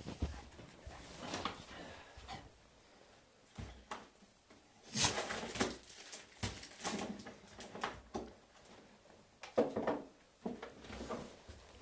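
Excited Bull Terrier making short, irregular dog noises, with quiet gaps between them; the loudest come about five seconds in and again about nine and a half seconds in.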